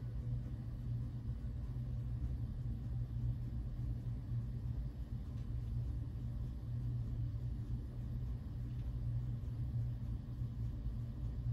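Steady low rumble with a faint hiss behind it, even throughout, with no speech or music.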